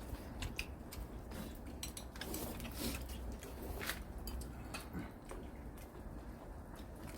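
Scattered light clicks and clatter of chopsticks and dishes while people eat, over a low steady rumble.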